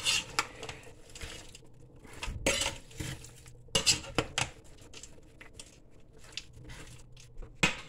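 Slotted spatula stirring vegetables in an Instant Pot's metal inner pot: irregular clinks and scrapes against the pot, with the loudest strokes about two and a half and four seconds in.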